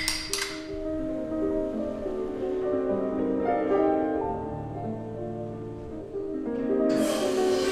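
Background piano music with a slow melody. A few sharp clicks sound at the very start, and a rushing hiss comes in near the end.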